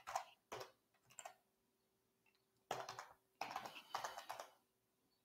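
Faint typing on a computer keyboard: short runs of keystrokes, with a pause of about a second and a half near the start before a longer run.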